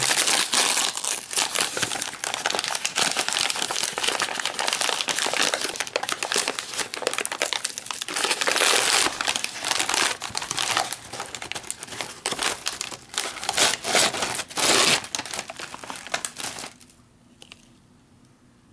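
Paper packaging of a Wasa Husman crispbread pack crinkling and rustling as it is opened by hand and a slice of crispbread is pulled out. The crinkling is loud and continuous, then stops about two seconds before the end.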